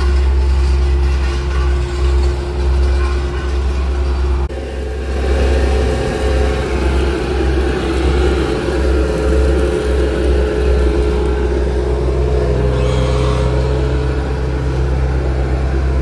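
Diesel engine of a Bobcat S205 skid-steer loader running steadily close by as it tips asphalt from its bucket, a loud low drone throughout; the sound shifts abruptly about four and a half seconds in.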